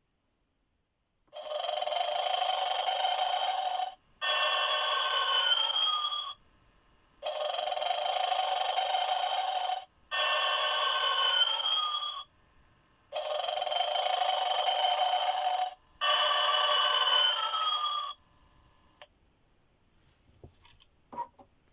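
Animated snoring Santa Christmas ornament toy playing its snore: three snores about six seconds apart, each in two parts, the second with a falling whistle. A few faint clicks come near the end.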